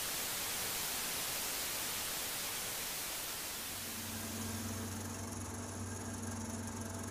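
Television static hiss from an old TV set, thinning out about four seconds in as a low steady hum takes over.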